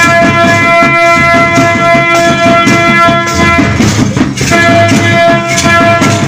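Loud folk dance music: steady drumming and rattling percussion under a held high melody tone. The tone drops out for about a second near the middle, then comes back.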